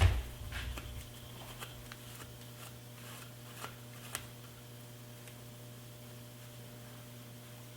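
Faint handling noises and a few light, scattered clicks from working on a bicycle bottom bracket with a rag, over a steady low electrical hum.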